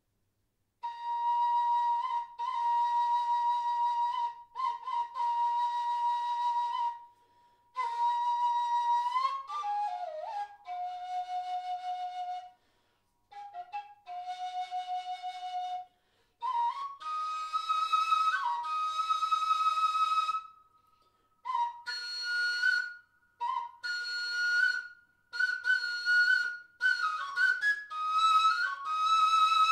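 Flute playing a slow, free melody that starts about a second in: long held notes with small slides and ornaments, first around one pitch, then stepping lower, then higher, in phrases broken by short pauses.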